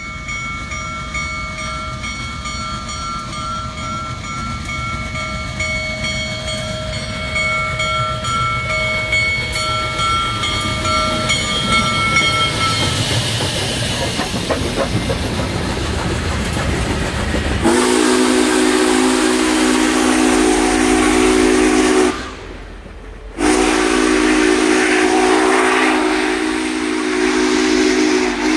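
Union Pacific Big Boy 4014 steam locomotive: a train rumble with a fainter, higher steady tone over it, then a rush of hissing steam, and a little past halfway its deep chime steam whistle sounds loud in two long blasts with a short break between.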